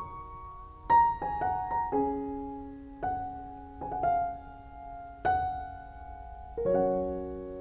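Slow, gentle solo piano music: single notes and soft chords struck about once a second, each left to ring and fade.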